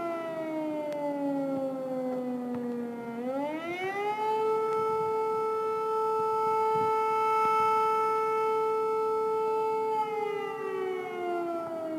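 Civil defence siren wailing. Its pitch falls for about three seconds, climbs back within about a second, holds steady for about six seconds, then starts to fall again near the end.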